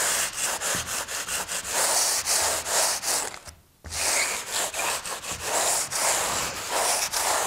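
A coarse hand foam rasp scraping back and forth over styrofoam insulation board in quick repeated strokes, with a brief pause a little past halfway. The rasping squares the board edges and brings high spots and joints flush before the base coat.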